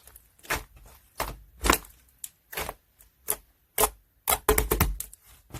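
Opaque sky-blue slime being squeezed and folded by hand, giving sharp clicking pops as air pockets burst. The pops come singly at uneven intervals, with a quick run of several near the end.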